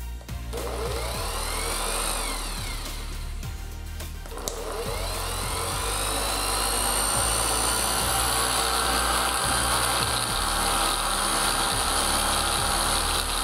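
Stanley FatMax FME440K 480 W random orbital sander running unloaded in the air: its motor winds up and back down, then with a click about four and a half seconds in it starts again and settles into a steady run with a high whine.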